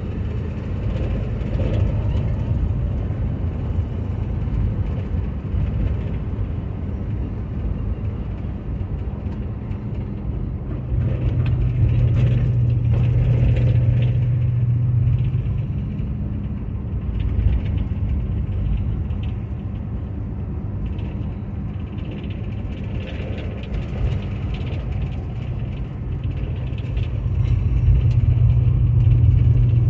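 A car's engine running and road noise, heard from inside the cabin while driving. The low engine drone grows louder about eleven seconds in and again near the end as the engine pulls harder.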